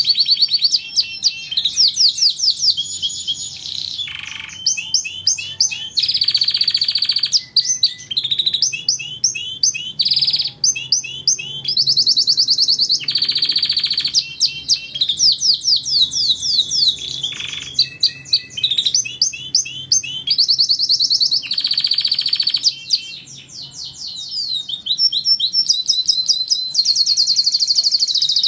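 Domestic canary singing continuously: fast trills, rapid repeated notes and sweeping phrases, changing from one tour to the next every second or two, used as a tutor song for training other songbirds.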